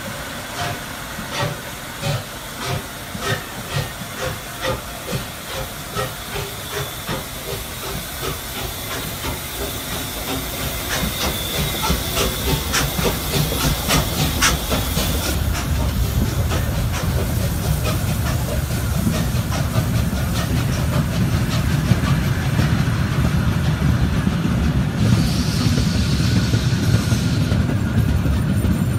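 Three-cylinder Baden G 12 (DR class 58) steam locomotive working a train: exhaust chuffs about two a second that quicken and merge into a steady, growing rumble of exhaust and running gear. Steam hisses with a run of sharp clicks in the middle.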